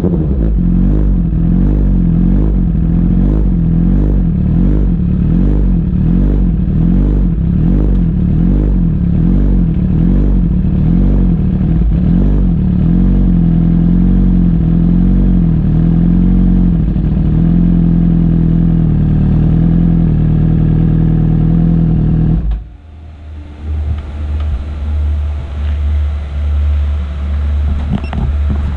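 Motorcycle engine running at a steady low speed with a slow, regular waver, then shut off suddenly about 22 seconds in. A fainter low rumble that rises and falls follows.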